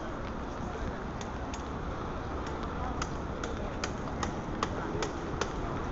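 Busy city sidewalk ambience: a low street rumble and the murmur of passing voices. From about three seconds in comes a regular run of sharp clicks, about two and a half a second, of hard-soled footsteps on the pavement.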